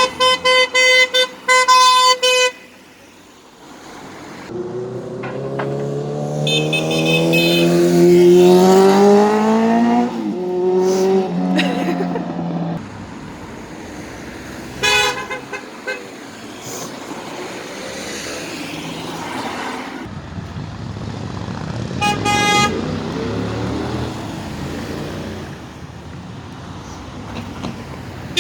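Car horns honking from passing vehicles: a rapid run of about half a dozen short toots at the start, then single toots now and then. Between them a vehicle's engine accelerates past, rising in pitch, over steady road traffic noise.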